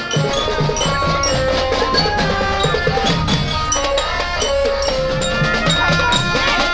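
Loud music of ringing metallic mallet percussion and drums, with many held pitched notes over a quick, regular drum beat.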